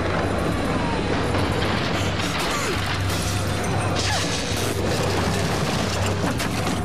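Tense cartoon soundtrack: dramatic score under a dense, rumbling, grinding sound effect with a steady low drone.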